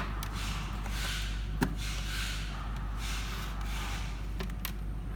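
A few sharp clicks over steady background hiss and low hum: one about a second and a half in, two more close together near the end. No siren sounds.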